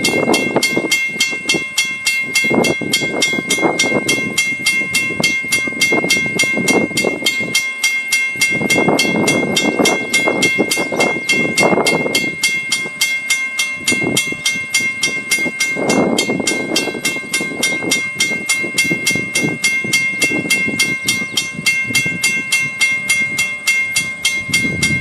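Railroad crossing signal's WRRS mechanical bell ringing steadily in rapid, even strokes, warning of an approaching train. An uneven rushing noise swells and fades underneath it.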